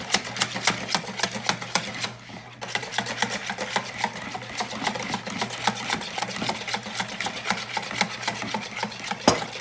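A whisk beating rapidly against the side of a bowl, a quick even run of clicks about five or six a second with a short pause about two seconds in. Olive oil is being whisked into a vinaigrette dressing.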